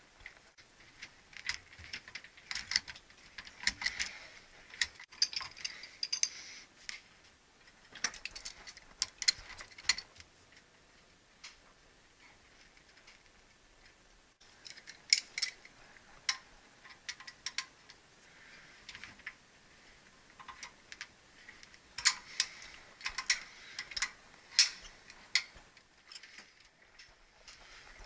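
Small metallic clicks and clinks from hands and tools working a brass ball valve and braided hose fitting on water-source heat pump piping. They come in several bursts of rapid ticks with quiet gaps between.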